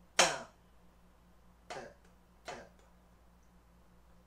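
Drumsticks striking a practice pad in slow, separated strokes: one loud accented stroke about a quarter second in, then two softer taps about a second and a half and two and a half seconds in.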